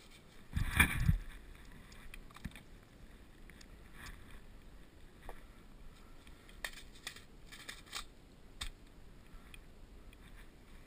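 A brief heavy thump and rustle on the helmet-mounted camera about a second in, followed by scattered single sharp clicks and snaps over a quiet background.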